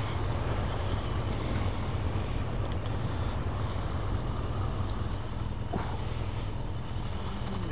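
Motorcycle engines idling with a steady low rumble. A brief hiss about six seconds in.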